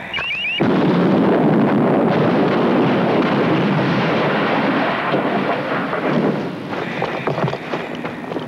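A few short, high electronic chirps, then a loud rushing roar like a blast of gas or wind. The roar starts abruptly about half a second in, holds steady for several seconds and eases off near the end.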